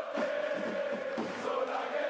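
Crowd of many voices shouting and calling, blending into a steady din of overlapping voices.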